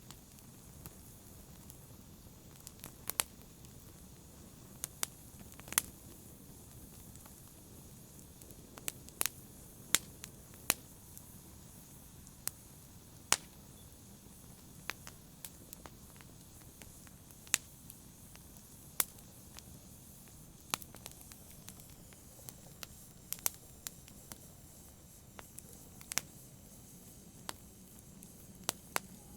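Wood fire crackling: sharp, irregular pops, about one every second or two, over a low steady hiss of burning.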